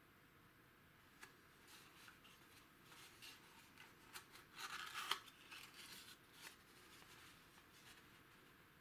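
An old cardboard valve carton being handled and its end flap pried open: faint rustling, scraping and small clicks of card on card and against fingers, loudest about five seconds in.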